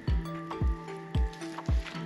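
Background music with a steady beat of about two thumps a second under held notes.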